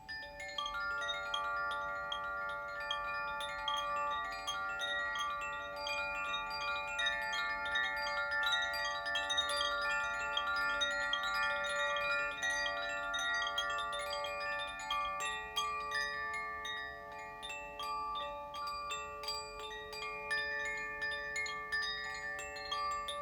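Koshi chimes in the Aqua (water) and Terra (earth) tunings, swung so that the clappers strike the rods in a dense, continuous tinkle. Many overlapping notes ring on and blend into a shimmering chord; the chiming comes in abruptly at the very start.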